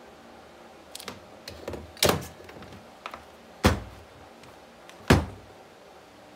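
A few light clicks, then four sharp knocks about a second and a half apart: objects, among them a handheld multimeter, being handled and set down on a wooden workbench.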